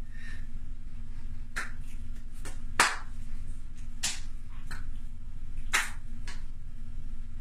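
Hands clapping and slapping together in a short irregular series of sharp smacks, about eight in all, the loudest about three seconds in, over a steady low hum.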